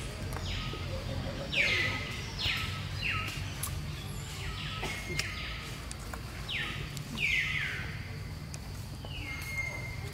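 An animal's repeated short high calls, about one a second, each sliding down in pitch and ending on a brief held note, over a steady low background hum.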